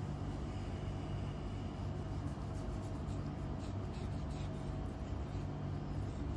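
A steady low hum, with a few faint light clicks and scrapes about four seconds in as bones are pulled from a raw fish fillet.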